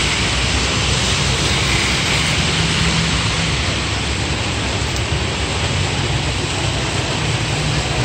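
Steady rain and car tyres hissing on a wet road as vehicles pass slowly, with the low hum of their engines underneath.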